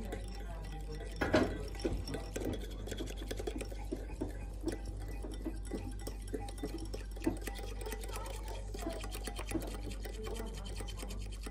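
Metal spoon stirring a red jelly mixture in a glass bowl, with quick irregular ticks and scrapes against the glass and one louder clink about a second in.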